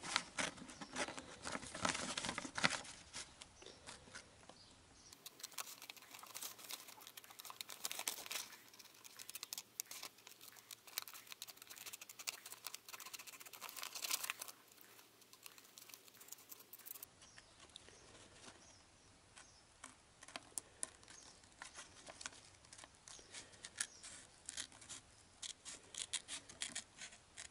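Scissors snipping through paper in short runs of small cuts, cutting out a traced circle.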